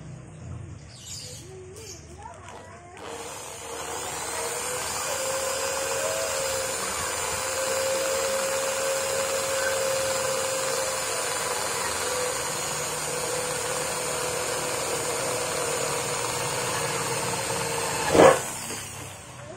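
Electric hand drill boring a small hole, with a 4–5 mm bit, through a car's sheet-metal rear body panel. It starts about three seconds in and runs as a steady whine. Near the end there is a single sharp, loud knock, and the drill stops.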